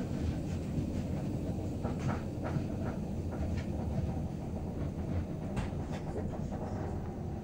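Railway passenger coach in motion, heard from inside: a steady low rumble of the wheels on the track, with a few faint clicks.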